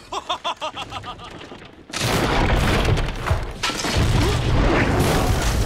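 A quick run of high, chattering pitched pulses, then about two seconds in a sudden loud rumbling boom with crashing that keeps going: a dramatic film sound effect.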